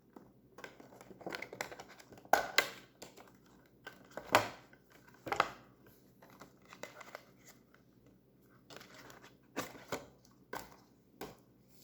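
Cube packaging being opened by hand: irregular tearing and crinkling with sharp crackles and clicks, a few louder ones in the first half.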